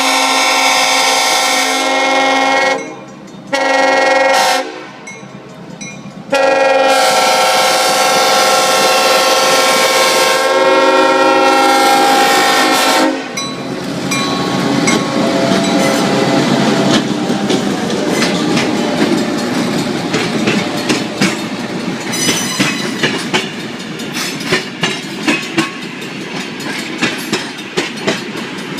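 Steam locomotive No. 7470's whistle blowing three blasts: long, short, then long. After the whistle stops, the train rolls past with its wheels clicking rhythmically over the rail joints.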